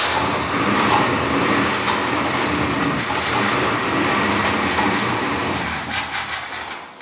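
A 1965 Mercury pickup's 352 V8 running, then dying away near the end: a stalling engine that runs on fuel poured in by hand and will not keep going on its own fuel pump.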